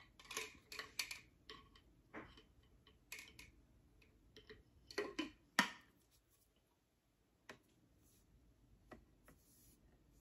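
Quick, faint clicks and knocks of a straw being fitted into a coffee tumbler's lid and the tumbler handled, busiest in the first six seconds, then a few faint ticks.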